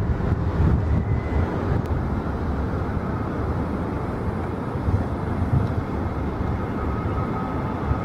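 Jet airliner engines at takeoff thrust, heard as a steady noise with a heavy low rumble.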